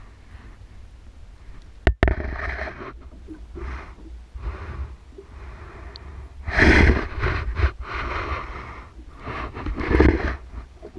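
An angler breathing in loud, irregular puffs while fighting a hooked fish on a bent rod, the loudest puffs about six and a half and ten seconds in. Wind rumbles on the action camera's microphone, and a single sharp knock comes about two seconds in.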